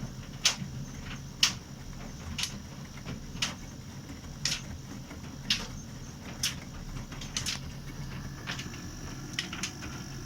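Bosch laundry machine running: a low steady hum with a sharp click about once a second.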